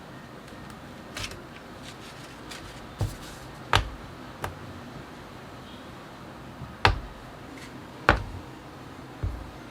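Irregular sharp clicks and knocks of small hard parts being handled and set down on a work surface, about seven in all, some with a dull thump, over a steady low hiss.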